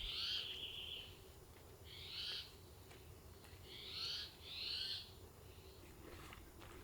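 A bird calling four times, faint and high-pitched: a longer drawn-out call at the start, then three shorter arched calls, the last two close together.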